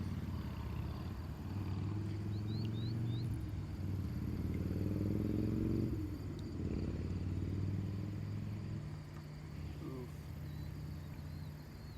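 A motor drones steadily, swelling and rising in pitch between about two and six seconds in, as if passing, then settling back to a lower hum. A few faint high chirps sound about two to three seconds in.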